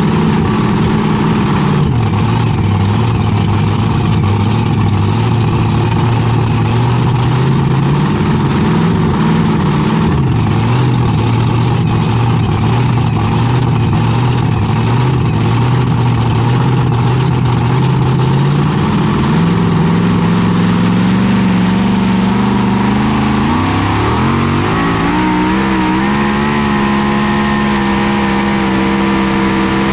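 Pulling tractor's V8 engine running loudly, heard from the driver's seat: a steady low idle with a couple of small rises in pitch, then the revs climb in two steps over the last ten seconds, the second one quick, and hold at a higher, steady pitch.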